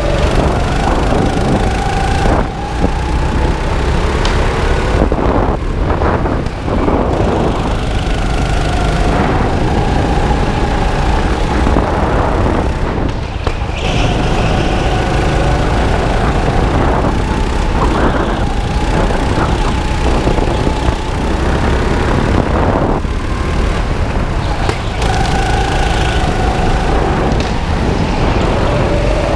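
Go-kart engine running hard through laps, heard from on board. Its pitch climbs on each straight and drops back into each corner every few seconds, over a heavy low rumble.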